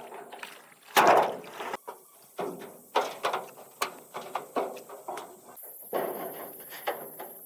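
A run of irregular knocks and thuds, with a louder rough, scraping burst about a second in.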